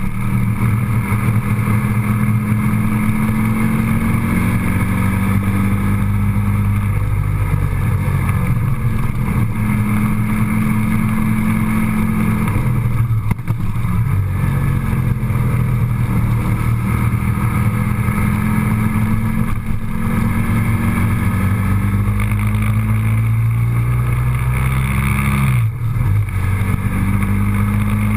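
A vehicle's engine running steadily on the move, its drone drifting up and down in pitch, with two brief drops about 13 and 26 seconds in.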